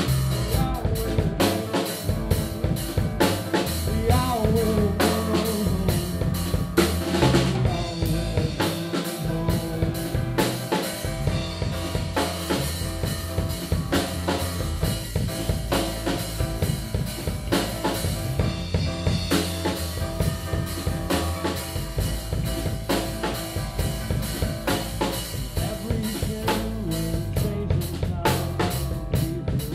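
Live band playing an instrumental passage: a drum kit keeps a steady beat with kick, snare and rimshots under electric bass and keyboard. A melodic line slides around over the beat in the first several seconds.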